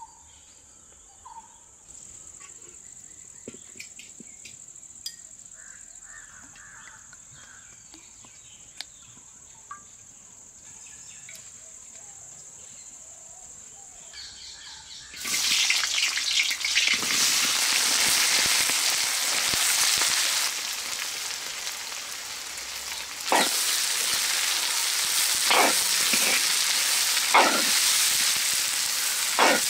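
A steady high insect drone with a few bird chirps, then about halfway through a sudden loud sizzle as chopped red onions go into hot oil in a large metal wok. The frying goes on steadily, with several scrapes of a ladle stirring the onions against the pan.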